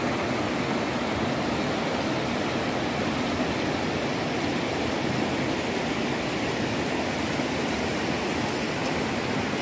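Shallow mountain stream rushing over rocks and stones, a steady even rush of water.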